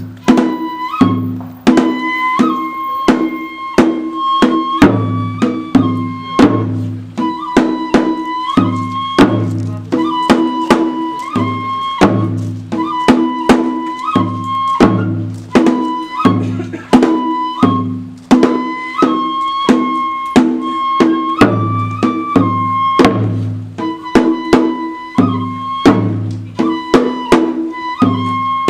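Kagura festival music: a bamboo transverse flute plays a repeating melody over a taiko drum, which is beaten with sticks in a steady pattern of deep booms and sharp strokes.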